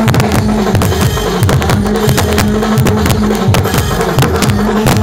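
Loud amplified dance music playing without a break, with a steady drum beat over a deep bass line.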